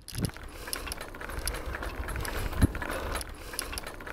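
Bicycle being ridden along a road: a steady rattle of the bike's parts with many small clicks over tyre and road noise, and a low thump near the start and another, louder one past halfway.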